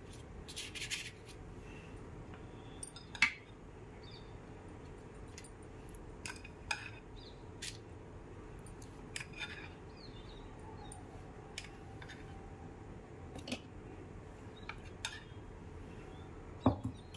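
A spoon clicking and clinking now and then against a glass mixing bowl and a metal muffin tin as cake batter is spooned into paper cupcake liners, with a duller knock near the end.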